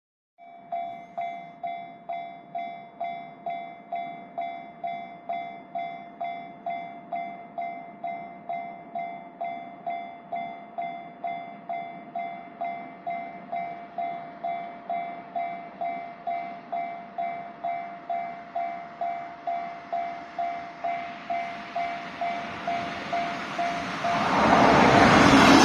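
Japanese level-crossing warning bell starting up and ringing steadily about twice a second. Near the end the loud rush of the freight train arriving swells over it.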